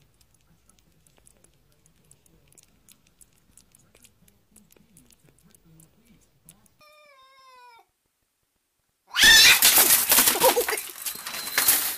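A puppy gives a short, faint falling whimper in its sleep about seven seconds in. From about nine seconds in a cat yowls loudly and wavers in pitch over a rattling clatter of window blinds.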